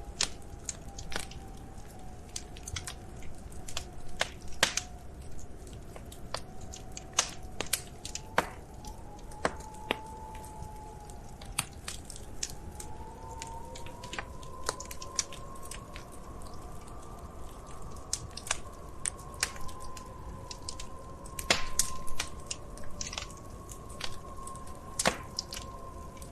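Wood fire crackling in a fireplace: irregular sharp pops and snaps over a low steady rumble, with a burst of louder pops late on. A faint, slowly wavering tone hums underneath.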